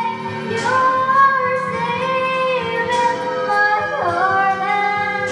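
A song playing: a singing voice on long held, gliding notes over instrumental backing.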